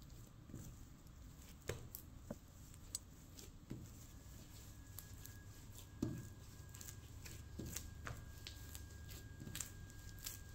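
Sticky pizza dough being pulled, stretched and pressed by hand on a floury stone worktop: faint squelching and tearing with scattered soft thumps, the loudest about six seconds in.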